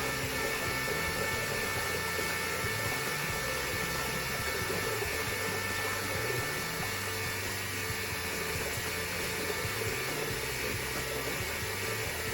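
Small electric pump running steadily with a constant whine, pumping RV antifreeze from a tub through a hose into a tractor's rear tire as liquid ballast.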